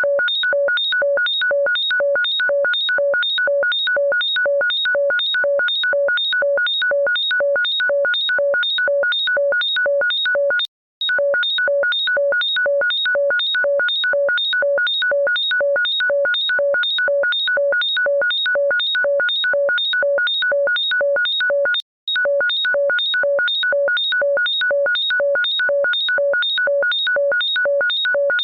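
Electronic ringtone of rapid, evenly repeating synthesized beeps at a few fixed pitches, about three a second. It plays as a loop that cuts out briefly and restarts twice.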